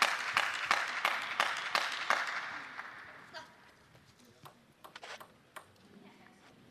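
Audience applause with rhythmic clapping, about three claps a second, fading out over the first three seconds after a point is won. Then a few faint light taps of the table tennis ball as the server gets ready.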